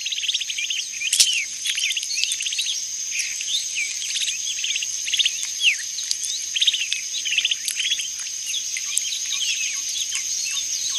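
Natural ambience: a steady high insect trill with many short, quick bird chirps over it.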